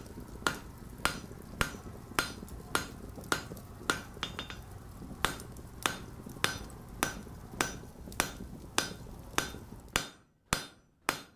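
A blacksmith's hammer striking an anvil in a steady rhythm, about two ringing blows a second. A steady low rumble runs underneath and cuts off about ten seconds in, after which the blows continue on their own.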